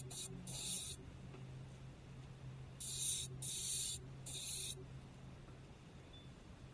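Short bursts of aerosol spray, five in all: two quick sprays near the start, then three more about three to five seconds in. A steady low hum runs underneath.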